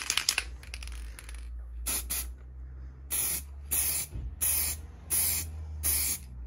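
Aerosol spray can of car paint sprayed in short hissing bursts, several in a row about half a second to a second apart, laying a second base coat. At the very start comes the tail end of the can's mixing ball rattling as the can is shaken.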